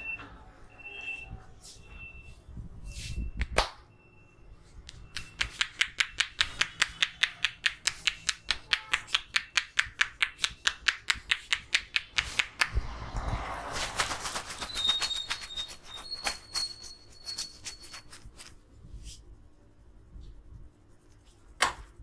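Head-tapping massage: the barber's joined palms strike the top of the head in a fast, even run of loud taps, about five or six a second, for some seven seconds starting about five seconds in. A few single sharp taps come before and after the run, one near the end.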